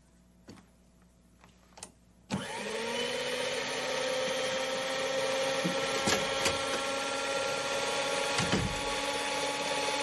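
Electric stand mixer's motor switched on about two seconds in, spinning up and then running steadily with a whine. There are a couple of faint clicks before it starts and a few clicks and a low knock while it runs.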